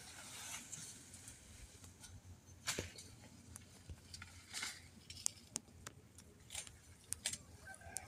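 Faint hens clucking, with scattered light clicks and rustles.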